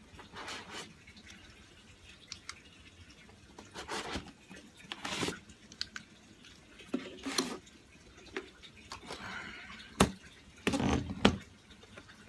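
Plastic handling noises from a DJI Phantom 3 drone's shell and its flight battery being handled: scattered short clicks, knocks and rubs, with a sharp click about ten seconds in.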